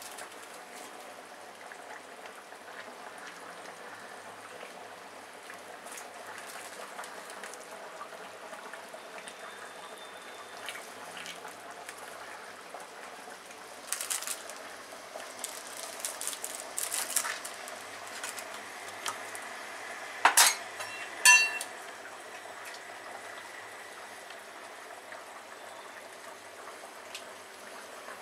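Chicken curry simmering in a metal kadai on a gas burner, a steady bubbling hiss with scattered small clicks. About twenty seconds in come two sharp metal clanks, a second apart, that ring briefly.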